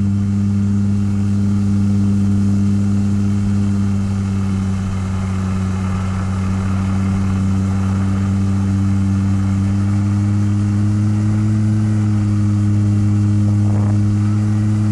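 Electric motor and propeller of a homemade RC model plane running steadily in flight, heard from a camera on board as a constant low drone. The pitch rises slightly about two-thirds of the way through.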